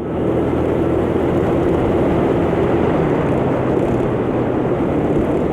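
125cc motor scooter engine running steadily under way, with wind rushing over the microphone. It swells up in the first half second, then holds steady.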